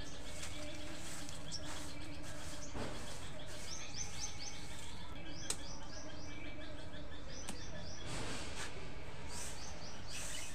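Birds chirping in quick runs of short high notes, several times over. A soft grass broom swishes across a concrete floor a few times, loudest about eight seconds in, over steady background noise.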